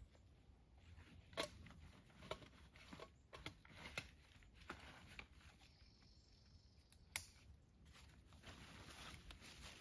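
Faint rustling and a scattering of sharp little clicks as a canvas backpack is packed and closed by hand, a plastic water bottle pushed inside and the fabric and straps handled.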